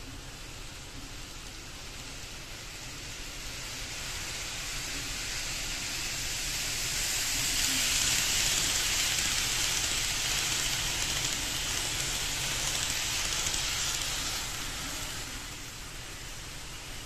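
KATO N-gauge 500 series Shinkansen model train running on its track: a hissing rush of wheels and motor that swells as the train comes near, stays loud for several seconds, then fades as it runs away, over a steady low background hiss.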